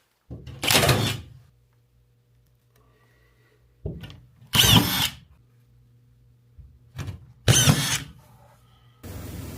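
Drywall screw gun driving three screws into drywall, about three seconds apart: each drive is a short, loud whirring burst with a brief lead-in burst just before it, and a faint steady motor hum runs between the drives.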